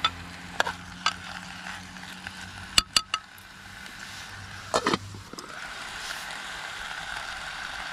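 A metal spoon clinks sharply against a small camping saucepan several times in the first five seconds as chicken and peppers are stirred. A steady hiss from the stove and the sizzling pan builds through the second half.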